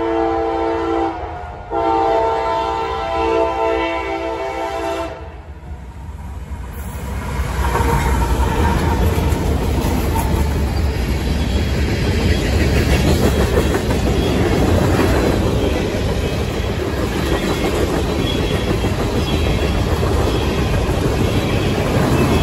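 CSX freight locomotive's horn sounding two blasts for the grade crossing, a short one and then a longer one about three seconds long. About seven seconds in the train reaches the camera and passes at speed: a steady loud rumble and clatter of boxcar and tank car wheels on the rails.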